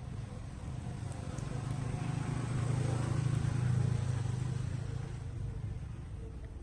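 A motor vehicle passing by: a low engine hum and road noise that grows louder to a peak about halfway through, then fades away.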